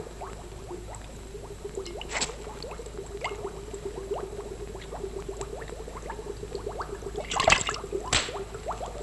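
Wet dripping and squelching, many small drips, with sharper knocks about two seconds in and twice near the end, over a faint steady hum.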